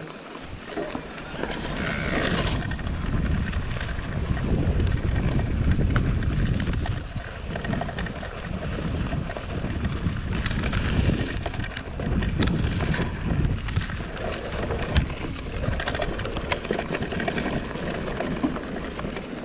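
Mountain bike being ridden over a loose dirt trail: tyre noise over the ground with wind buffeting the microphone, and one sharp click late on.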